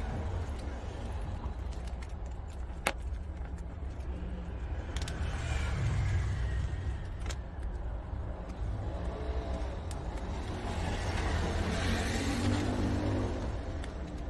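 Two prairie dogs chewing crunchy donut-shaped snacks, with a few sharp crunches over a steady low rumble.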